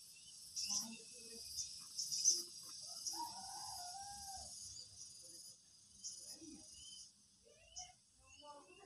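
Steady high-pitched chirring of insects, with one drawn-out, slightly falling call about three seconds in that lasts over a second.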